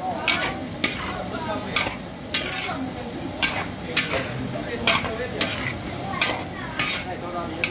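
Duck with bell pepper, carrot and onion stir-frying in a hot pan: a steady sizzle, with the stirring utensil scraping and knocking against the pan about once or twice a second.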